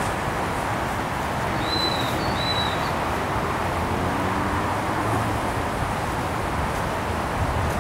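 Steady wind noise on the microphone outdoors, with two short high whistled notes about two seconds in.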